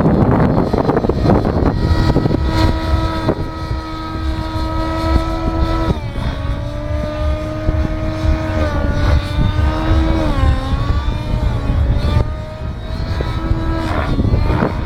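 Radio-controlled model aircraft motor whining with a steady pitch that drops about six seconds in, then dips and recovers a couple of times as the throttle changes, over heavy wind noise on the microphone.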